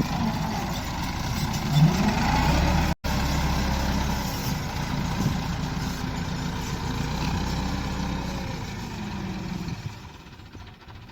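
Heavy diesel engine running, rising briefly in pitch under load just before two seconds in. The sound drops out for an instant about three seconds in and grows quieter near the end.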